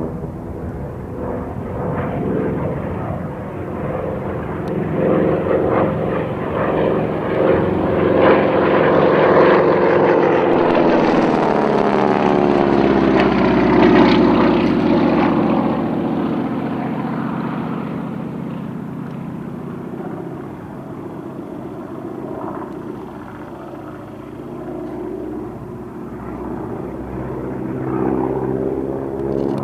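Radial engine and propeller of a 1936 Spartan 7W Executive in flight (a Pratt & Whitney R-985 Wasp Junior nine-cylinder radial). The drone swells to its loudest about halfway as the aircraft passes close, its pitch dropping as it goes by, then fades and builds again near the end as it comes round once more.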